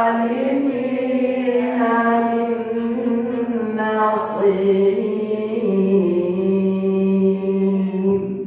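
A man's voice reciting the Quran in Arabic in a melodic, chanted style, holding long sustained notes that slide slowly between pitches. The recitation ends about eight seconds in.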